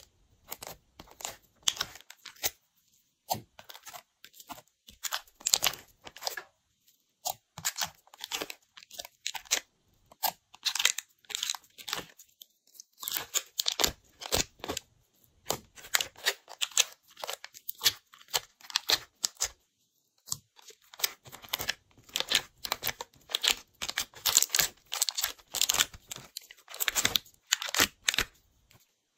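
Glossy slime being pulled and peeled out of a plastic palette tray: dense, irregular sticky crackles and pops, with two brief pauses.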